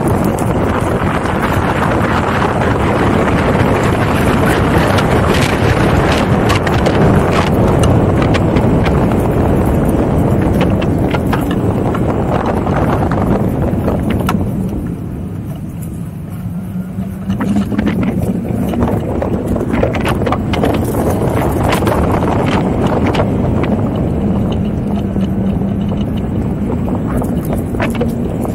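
Electric unicycle riding over cracked asphalt: steady tyre rumble and wind noise, with scattered clicks and rattles and a low hum. It eases off for a few seconds about halfway through, then comes back up.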